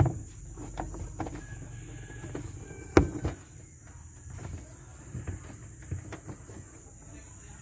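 Handling noise of a dashcam cable being tucked behind car interior trim with a plastic pry tool: scattered light clicks, taps and rustles, with one sharp click about three seconds in.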